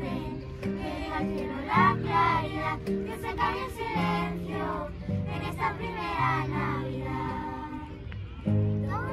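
Children's choir of girls singing a song with instrumental accompaniment, low notes held underneath the voices.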